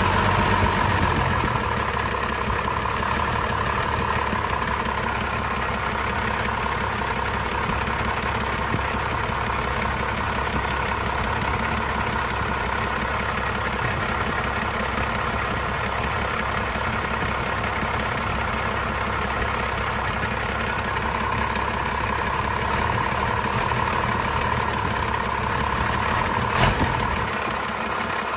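1989 first-generation 12-valve Cummins 5.9 L inline-six turbodiesel idling steadily. Its level and low rumble drop slightly about a second in, as it settles to idle. A single sharp click comes near the end.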